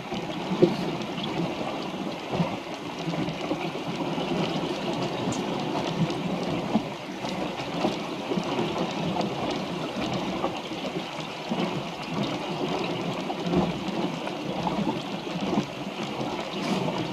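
Water rushing and splashing along the hull of a small wooden sailboat under way, a steady wash with scattered slaps. One sharp, louder slap comes about half a second in.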